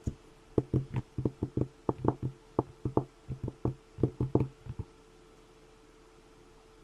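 A quick, irregular run of about twenty light knocks and taps from trading cards being handled on a table, stopping about five seconds in.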